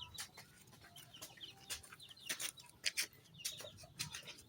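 Chickens clucking, with scattered sharp clicks and taps.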